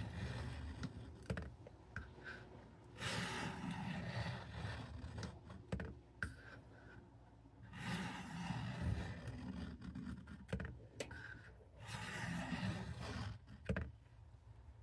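Cattaraugus 225 Quartermaster knife blade being stroked along a WD-40-lubricated fine-grit sharpening stone in an angle guide. Three spells of scraping, each about two seconds long, with light clicks and knocks between them.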